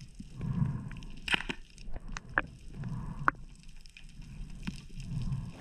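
Underwater sound heard by a submerged camera: a low, muffled rush of water that swells and fades every couple of seconds, with a few sharp clicks and ticks in the middle.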